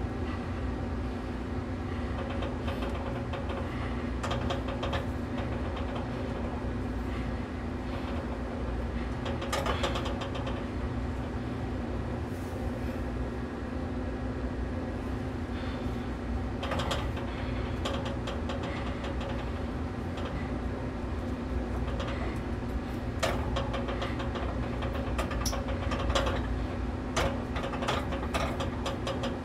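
A steady machine hum runs throughout. Over it come occasional soft rustles and taps as a hand works dry fish-fry coating mix in a glass bowl.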